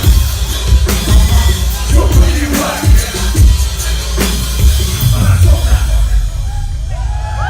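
Loud live electronic hip hop music played through a concert sound system, with a heavy pulsing bass and drum beat.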